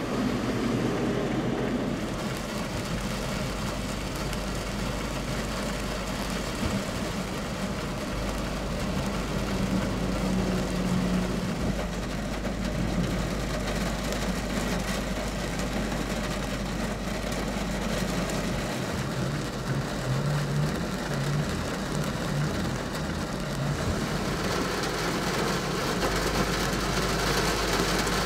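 Vehicles driving through floodwater in heavy rain: engines running and tyres splashing against a steady hiss of rain. The low hum of a heavy vehicle's engine stands out about ten seconds in and again around twenty seconds in.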